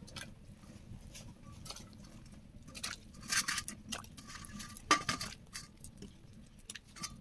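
Pieces of raw jackfruit dropped by hand into a metal pot of water: irregular soft splashes and light clinks against the pot, a few louder ones about three and five seconds in.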